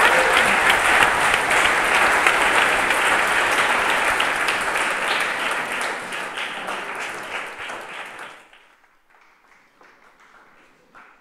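Audience applauding: dense clapping that fades away about eight seconds in, leaving a few scattered claps.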